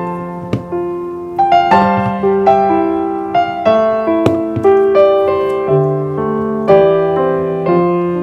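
Background music: a gentle piano melody, notes struck about twice a second and left to ring.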